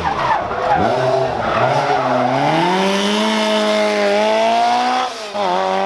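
Lancia 037 Group B rally car's supercharged four-cylinder engine under hard driving. The revs swing down and up quickly at first, then climb and hold high. About five seconds in there is a brief lift, a gear change, before it pulls again.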